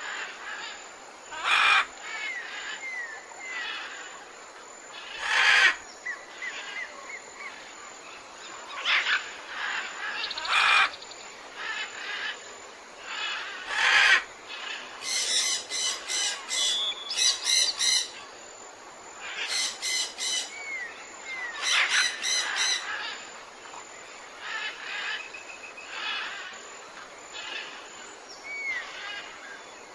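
Birds calling outdoors. Loud short calls come every few seconds, rapid runs of repeated notes come about halfway through, and soft thin chirps sound in between.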